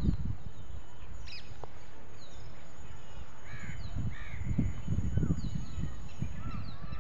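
Birds calling: two short, harsh, arched calls about three and a half and four seconds in, over scattered small high chirps. A low rumble on the microphone is loudest near the start and again around five seconds.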